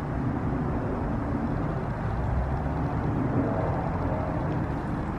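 Steady low outdoor background rumble with no distinct event standing out.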